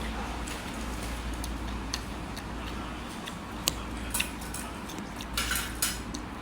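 Eating a cucumber and tomato salad: scattered light clicks of cutlery against a plate, with one sharper click a little before four seconds and a short cluster of louder scratchy sounds around five and a half seconds in. A steady low hum runs underneath.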